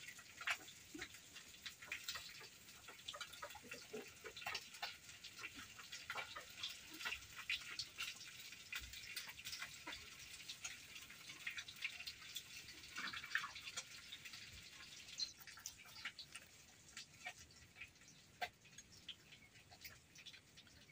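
Faint outdoor ambience with scattered, irregular light clicks and crackles.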